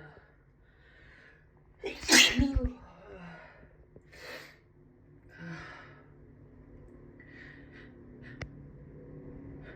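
A woman's allergy sneeze, loud and sudden, about two seconds in after a short intake of breath, followed by a few softer breathy sounds.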